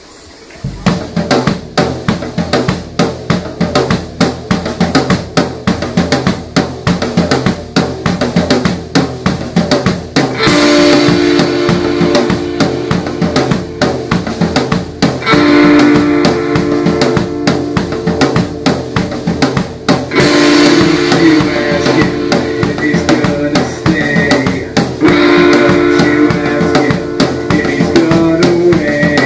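A rock band playing live in a room, instrumental: a drum kit opens with a steady beat, and electric guitars come in with sustained chords about ten seconds in.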